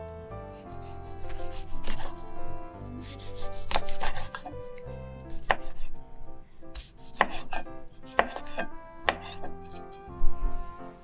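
Chef's knife slicing red chili peppers into rings on a wooden cutting board: a run of sharp, irregular chopping strokes of the blade through the peppers and onto the board, the loudest near the end.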